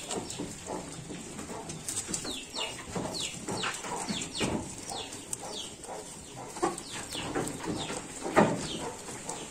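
Small birds chirping over and over in short falling chirps, mixed with Garut sheep rustling and chewing leaves at a wooden trough. A sharper knock comes about eight seconds in.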